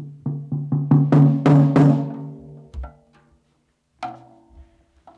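Tom-toms with coated Ambassador batter heads in a medium tuning, struck in turn and each ringing with a clear pitch. A quick run of about eight strikes on one tom comes first, then a lower-pitched tom about four seconds in.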